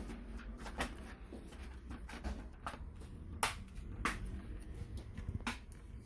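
Sharp plastic clicks and taps as an Asus X501A laptop keyboard is pressed down and snapped back into its clips on the top case, several separate clicks about a second apart, the loudest a little over three seconds in.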